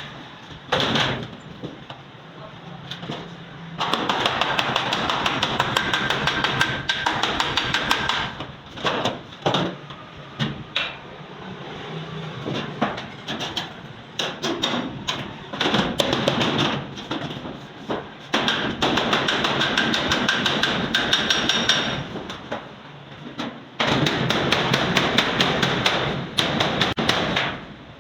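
Hammer beating on sheet steel in runs of rapid strikes a few seconds long, with pauses and scattered single knocks between them, the metal ringing faintly.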